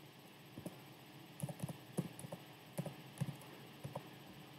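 Computer keyboard keys tapped one after another as a word is typed: a run of faint, irregular clicks.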